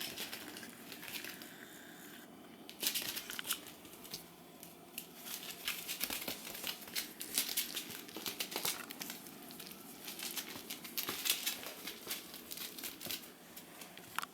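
Irregular crinkling and rustling in short, dense bursts: Shiba Inu puppies moving about on crinkly bedding. There is a quieter lull about two seconds in.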